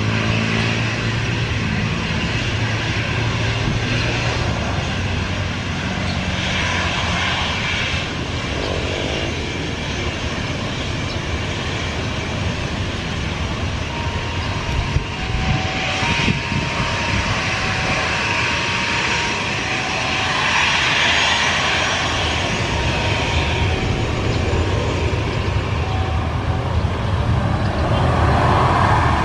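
Boeing 737 jet engines running at taxi power as the airliner turns and lines up on the runway: a steady jet roar that grows a little louder near the end.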